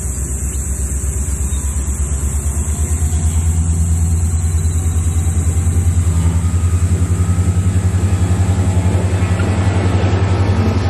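Queensland Rail diesel locomotive 2903 approaching and passing close by, its engine throbbing with a fast steady beat that grows loudest about six seconds in as it goes by. Near the end the passenger carriages roll past behind it.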